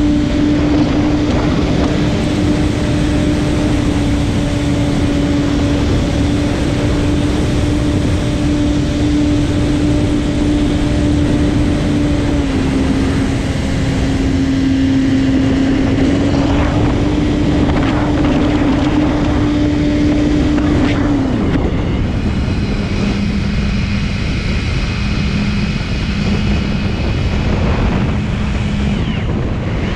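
Electric motor and propeller of an X-UAV Clouds model plane running in flight: a steady buzzing tone over heavy wind rush on the onboard camera's microphone. The pitch steps down about twelve seconds in, comes back up, then drops lower about two-thirds of the way through as the motor slows.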